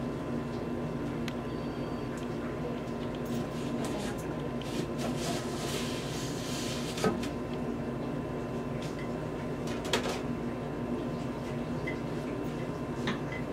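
Steady low electrical or mechanical hum with a thin high tone over it, broken by a brief hiss and three short sharp clicks.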